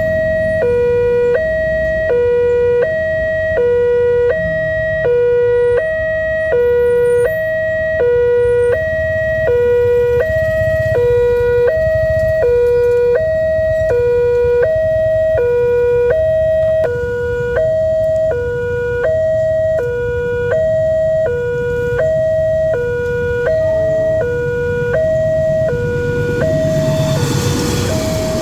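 Railway level-crossing warning alarm sounding its electronic two-tone signal, switching between a lower and a higher tone about twice a second: the warning that a train is coming. Near the end a rushing noise builds as the train approaches.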